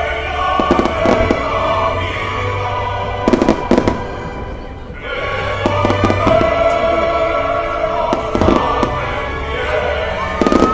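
Fireworks bursting in clusters of bangs every few seconds over sustained music.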